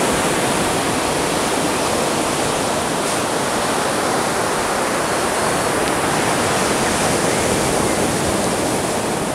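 Atlantic Ocean surf breaking and washing up a sandy beach: a steady rushing noise with no single crash standing out.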